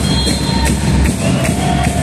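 Loud music with a steady beat and heavy bass.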